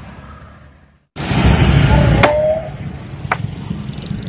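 The sound drops out to silence about a second in, then loud street noise with a low rumble cuts in abruptly, with a few sharp clicks, and settles into a steady low hum.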